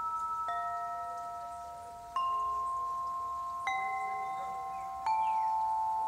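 Quartz crystal harp tuned in F to 432 Hz, its frosted quartz tubes struck one after another with a felt mallet: four soft strikes about a second and a half apart. Each gives a pure, bell-like tone that rings on with a slight pulsing, and the notes overlap.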